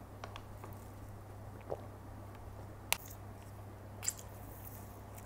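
Close, soft mouth sounds of sipping a drink through a straw and swallowing, with a few small sharp clicks from handling a plastic drink pouch, over a low steady hum.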